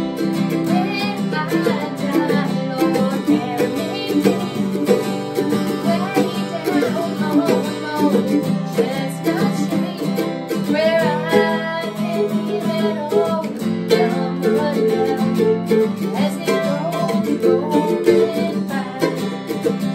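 Acoustic guitar strumming and an F-style mandolin picking a lively folk tune together, with a woman singing over them.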